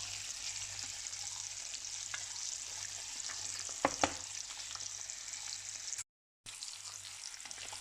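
Trout fillets frying in frothy butter and olive oil in a frying pan, a steady high sizzle. Two sharp clicks about four seconds in, and the sound cuts out for a moment about six seconds in.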